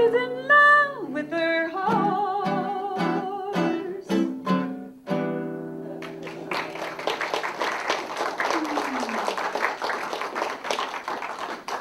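A woman yodeling over a strummed acoustic guitar, the song ending on a held chord about five seconds in. Then a room of listeners applauds for several seconds.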